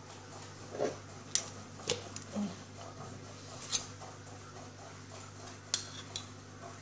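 A handful of sharp, separate clinks of a utensil against a kitchen dish, spread out over several seconds, over a steady low hum.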